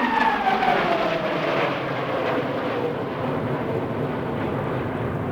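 A formation of Aermacchi MB-339 jet trainers flying past. Their turbojet whine falls in pitch over the first few seconds as they go by, over a steady rushing jet noise.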